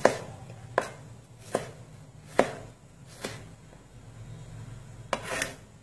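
Kitchen knife slicing a tomato into wedges on a plastic cutting board. The blade knocks the board in even strokes about once every 0.8 seconds, then after a short pause two quicker strokes come near the end.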